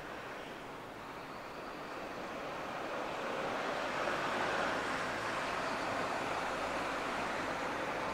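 Electric train running through the station: a broad rumble of wheels and running gear that builds over the first few seconds and then holds.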